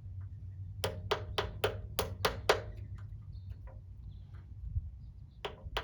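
Sharp taps, about seven in quick succession at roughly four a second, then two more near the end: a tool striking the lock tab on a 1967 Honda CT90's steering-stem spanner nut to bend it back down.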